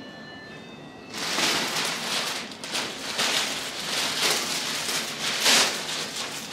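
Large thin plastic bag rustling and crinkling loudly as it is handled, shaken out and folded, starting about a second in with repeated surges of crackle.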